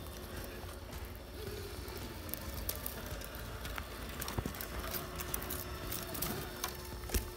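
Axial SCX6 1/6-scale electric RC crawler working over trail ground: scattered small clicks and crunches of its drivetrain and tyres on rock and dirt, more frequent after about two seconds, over a steady low rumble.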